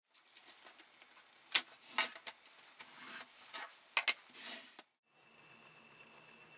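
Scattered clicks and taps of small hard laptop parts being handled, with the sharpest about one and a half seconds in and a close pair about four seconds in. Then the sound cuts out, and a steady faint hiss with a thin high whine follows.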